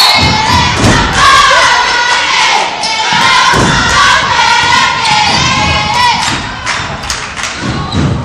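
Gym crowd shouting and cheering in high, overlapping voices during a girls' basketball game, with dull thumps every second or two. The shouting thins out in the last couple of seconds.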